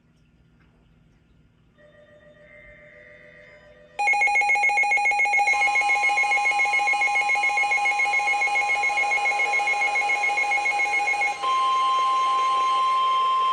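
Weather radio receiver sounding its alert: a loud, rapidly pulsing alarm tone starts about four seconds in. The steady 1050 Hz warning alarm tone of NOAA Weather Radio soon joins it and carries on alone near the end, announcing an incoming warning. Faint tones come before the alarm.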